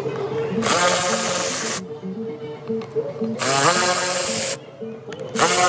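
Cordless power screwdriver running in three short bursts of about a second each, its whine rising as it spins up, backing out the Torx screws of the air filter housing cover; steady background music underneath.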